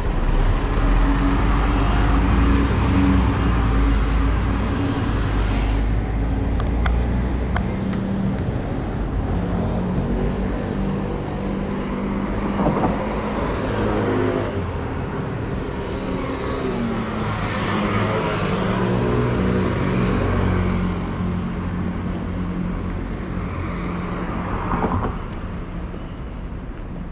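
City bus running close by with a deep rumble for the first several seconds, then dropping away as it pulls off. Cars pass on the street, rising and falling several times.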